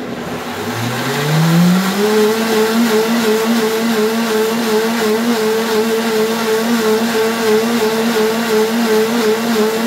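High-speed blender motor spinning up over about two seconds, then running steadily at full speed as it blends oranges, coconut and water into a drink. It starts to wind down at the very end.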